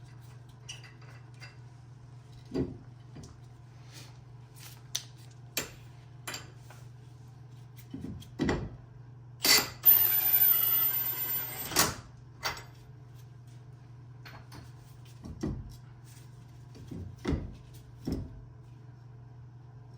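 Scattered metallic clicks and knocks as a brake rotor is set on the wheel hub and a lug nut is threaded onto a stud to hold it, with one loud rush of noise lasting about two seconds about halfway through. A steady low hum runs underneath.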